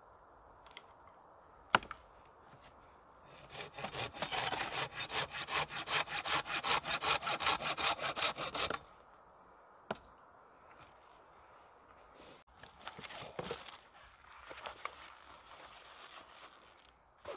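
Hand saw cutting through wood with quick, even back-and-forth strokes for about five seconds, stopping abruptly. A sharp knock comes shortly before the sawing starts, and there is fainter handling and rustling after it.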